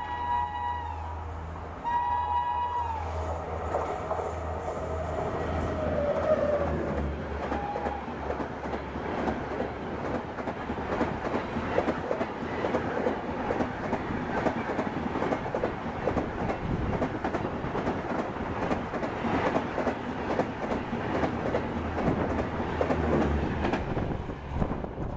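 A WAP-7 electric locomotive sounds two horn blasts as it approaches at speed. Then the express's coaches rush past without stopping, with a steady roar of wheels on rail and rapid clatter over the rail joints that eases off near the end as the last coach goes by.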